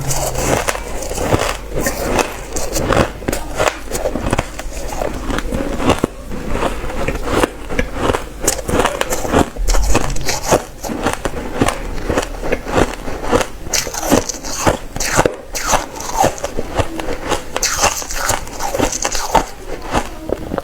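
A person biting and chewing ice: a dense, irregular run of sharp crunches and crackles, several a second.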